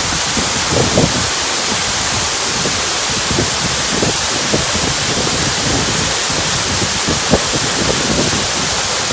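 Waterfall rushing: a loud, steady hiss of falling water, with scattered brief low rumbles underneath.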